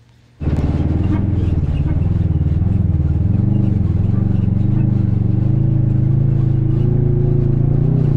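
Polaris Ranger Northstar side-by-side's engine running steadily under way, heard from inside its closed cab. It cuts in abruptly about half a second in, with small rises and falls in pitch.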